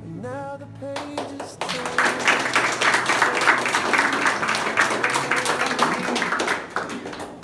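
A small group of people clapping, starting about a second and a half in and dying away near the end, over background music.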